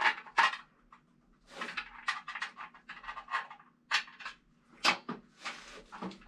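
A person breathing hard in short, uneven puffs while straining to hold up a heavy exercise-bike frame, with a couple of sharp knocks about four and five seconds in.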